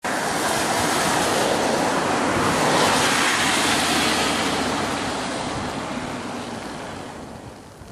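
Torrential rain hissing loudly, dying away gradually over the last few seconds.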